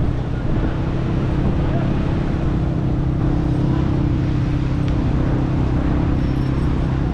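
Steady low engine hum of motor traffic, with a constant drone and no sudden events.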